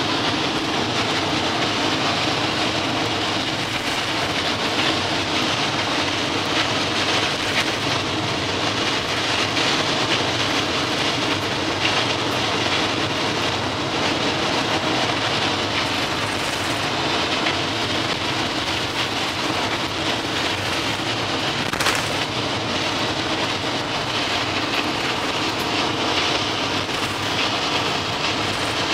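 A vehicle running steadily: a constant engine and road rumble that holds the same pitch and speed throughout.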